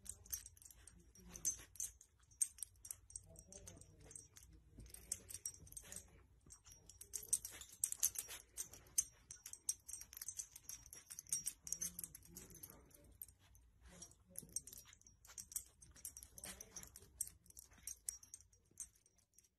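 Faint, irregular rustling of a soft baby blanket as a dog nudges and tucks it with its nose.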